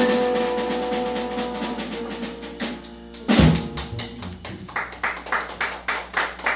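A live band ending a tune: a held horn note fades out, a single loud drum and cymbal hit lands about three and a half seconds in, then a run of quick, even sharp taps follows.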